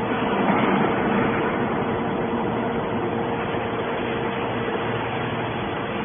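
Hydraulic triple-action scrap metal baler running: a steady machine hum with one constant mid-pitched tone, swelling slightly about a second in.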